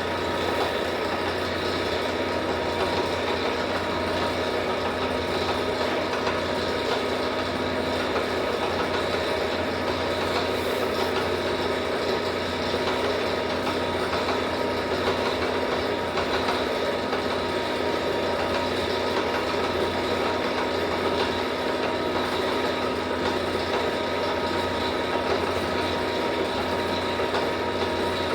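Motor-driven tyre-bending machine running steadily, a constant mechanical hum with several steady tones, starting abruptly.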